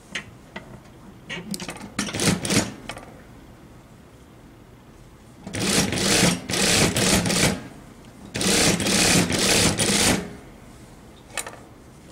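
Industrial single-needle sewing machine stitching a seam in runs: a few short bursts first, then two longer runs of about two seconds each, with a single click near the end.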